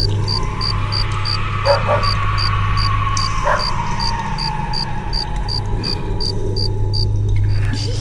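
Crickets chirping in an even rhythm, about three chirps a second, over a steady low hum. A long drawn-out tone slides slowly down in pitch through most of it, with a couple of short sounds about two and three and a half seconds in.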